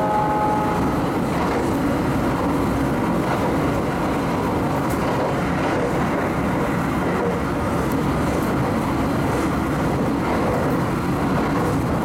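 JR West 681 series electric train running, heard from the vestibule deck: a steady rumble of wheels and car body. A whine of several steady tones from its GTO-VVVF inverter fades out about a second in.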